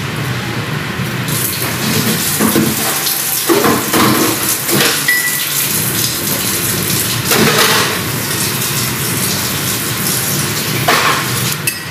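Broth simmering in a steel pot with a steady noisy bubbling, broken several times by louder splashes as pieces of fried milkfish are dropped into the liquid by hand.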